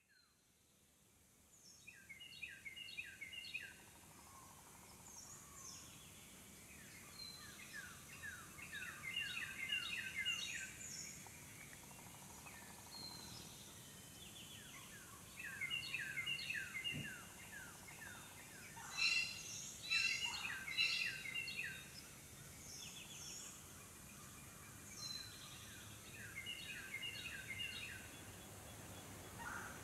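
Songbirds singing in the woods after rain: repeated runs of quick, high downslurred chirps, several notes to a phrase, loudest about two-thirds of the way through. A steady high hiss sits behind them.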